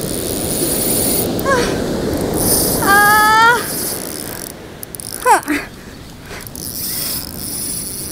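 Surf breaking and washing up a sand beach. A few short pitched calls cut through it: a small one about one and a half seconds in, a wavering one about three seconds in, and a falling one just after five seconds.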